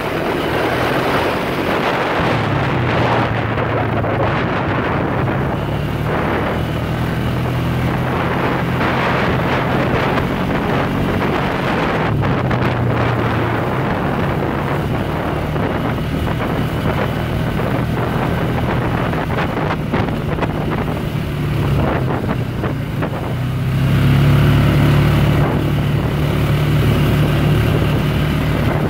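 ATV engine running steadily under way on a dirt trail, with wind buffeting the microphone; the engine grows louder near the end as the rider speeds up.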